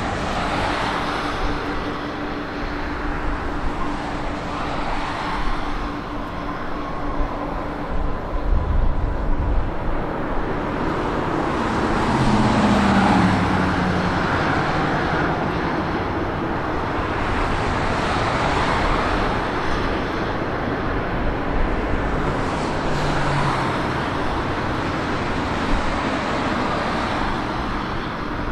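Steady vehicle engine noise, as of traffic or aircraft passing, with a low engine tone that falls in pitch about halfway through.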